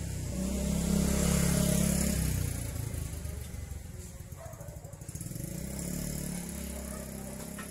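A motor vehicle's engine passing close, loudest about one to two seconds in and then fading, with a second, softer engine swell about six seconds in.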